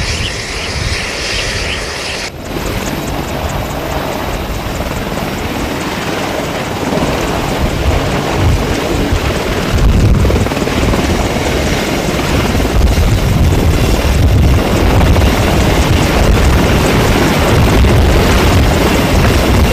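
AH-64 Apache attack helicopters running with rotors turning, a steady heavy rotor and turbine noise. It grows louder and deeper from about halfway through as one lifts off into a hover.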